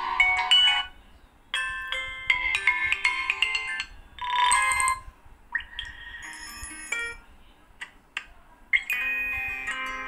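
Built-in ringtones of a Vivo Y33T smartphone previewed one after another through its speaker: about six short chiming melodies, each cut off after a second or two as the next one starts.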